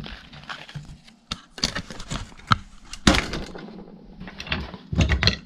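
Parts of a stripped-down diesel heater being handled and set down on a workbench: irregular knocks and clunks with rustling between them.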